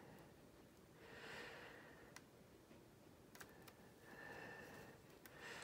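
Near silence: a person breathing softly through the nose twice, with a few faint ticks from handling a plastic model and paper mask.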